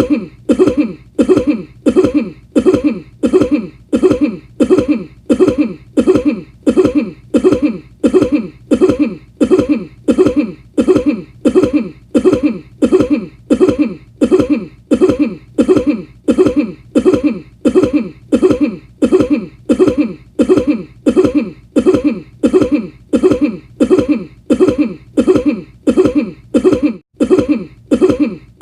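A man's single cough looped over and over, about three coughs every two seconds, each one identical.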